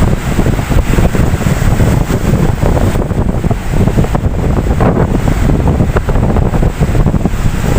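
Ocean surf washing in, with strong wind buffeting the microphone and making a heavy, continuous low rumble.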